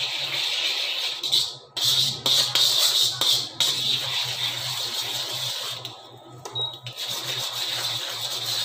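Butter melting and sizzling in hot oil in a steel kadhai, stirred with a steel ladle that clicks against the pan now and then. A steady low hum runs underneath, from the induction cooktop.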